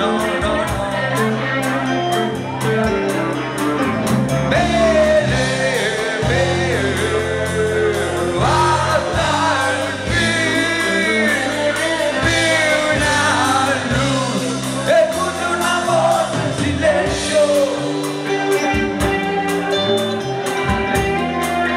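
Live rock band playing with electric guitars and drums, with a man singing lead over it through much of the middle of the stretch.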